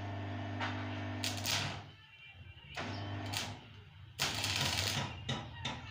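Stick (arc) welding on a steel tube frame: the arc crackles over a steady electric buzz. It breaks off about two seconds in and strikes up twice more, the last run, near the end, the loudest.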